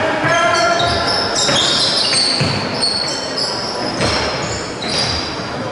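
Indoor hockey play in an echoing sports hall: many short high squeaks of shoes on the hall floor, several sharp knocks of stick and ball, and players' shouts.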